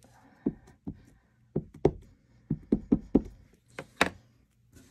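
A stamp mounted on a block tapped again and again onto an ink pad to ink it: about ten quick, irregular knocks.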